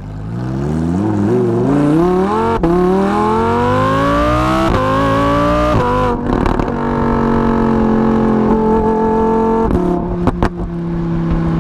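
Lamborghini Huracán Evo's 5.2-litre V10 accelerating hard, its pitch climbing, with two quick upshifts about five and six seconds in. It then runs at a fairly steady pitch, with a few sharp exhaust pops about ten seconds in.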